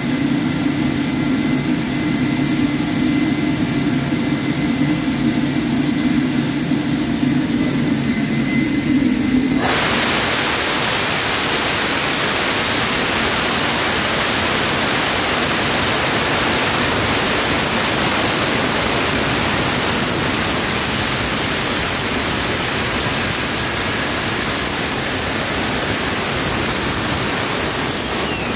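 Rolls-Royce/Snecma Olympus 593 turbojet being started: an APU hums steadily at first, then about ten seconds in the pneumatic starter engages with a sudden rush of air, and the engine spools up with a whine that climbs steadily in pitch.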